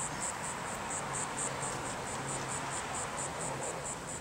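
Insect chirping: a short high pulse repeating evenly about four times a second, over a steady background hiss.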